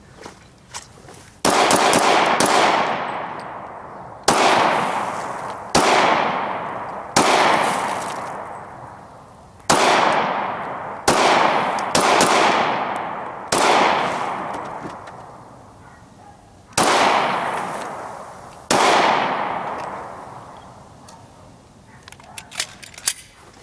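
About ten handgun shots fired one at a time, one to three seconds apart, each followed by a long echoing decay. A few faint clicks come near the end.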